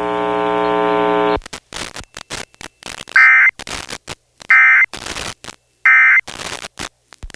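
A steady buzzy tone cuts off about a second and a half in. Then come three short data bursts about 1.4 seconds apart, with choppy crackling radio static between them: the Emergency Alert System end-of-message signal that closes a severe thunderstorm warning.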